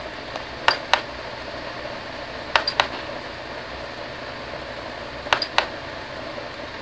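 Small plastic push button on a UTECH DVX-600 camcorder being pressed three times, each press a quick double click of press and release about a quarter second apart, stepping the camera through its modes. A steady low hiss runs underneath.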